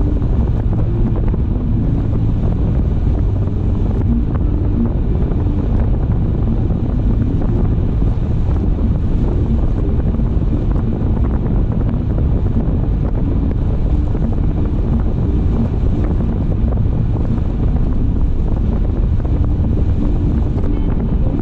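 Steady road noise of a car on the move: a low rumble of tyres and wind buffeting the microphone, with no clear individual events.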